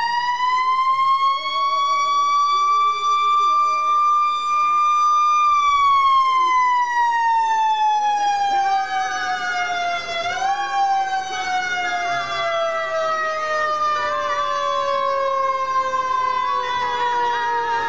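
Fire engine siren wailing. The pitch rises and holds for about five seconds, then falls slowly for the rest of the time, with a brief upward kick about ten seconds in.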